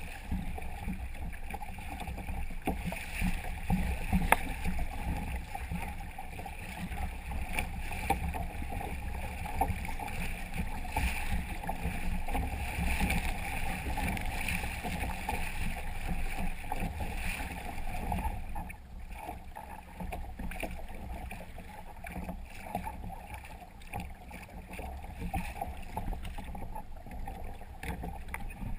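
Water rushing and splashing along the hull of a Hobie Tandem Island kayak-trimaran under way: a steady wash over a low rumble.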